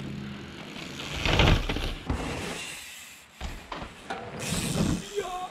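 Mountain bikes on a rocky dirt trail: tyres rolling and the bikes clattering, loudest in a burst about a second and a half in, then rough rolling noise again after a short break.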